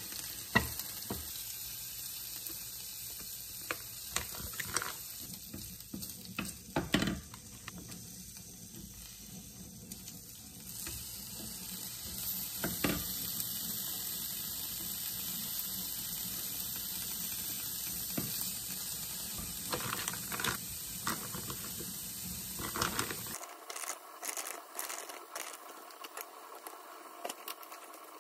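Lotus root slices and bacon sizzling in a frying pan, stirred with a wooden spatula, with scattered knocks of the utensil against the cookware. Near the end the sizzle cuts off and only a few light taps remain.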